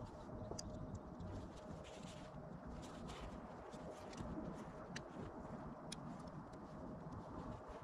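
Faint sound of a dome tent being pitched, played back at four times speed: a low rumble with a steady hum and scattered light clicks from poles and fabric being handled.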